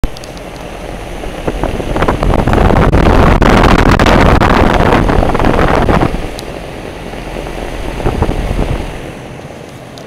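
Lennox heat pump outdoor unit's three-blade condenser fan running, its discharge air rushing loudly over the microphone held above the top grille. The rush is strongest for a few seconds and eases about six seconds in as the camera moves off the outlet.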